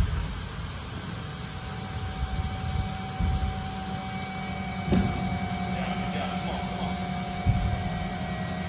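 Heavy thumps of an athlete's feet and body landing on a rubber gym floor during box jump-overs and burpees, four in all, over a steady low hum.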